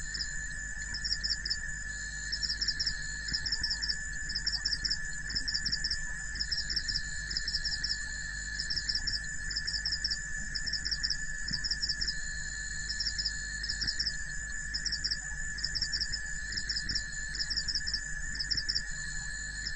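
Chorus of insects: cricket-like chirps, each a short burst of rapid pulses, repeating about once a second over a steady high-pitched drone.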